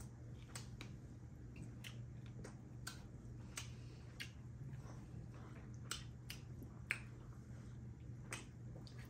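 Eating sounds of people eating rice and curry by hand: irregular sharp, wet clicks and smacks from chewing and lip-smacking, about fifteen over several seconds, over a faint steady low hum.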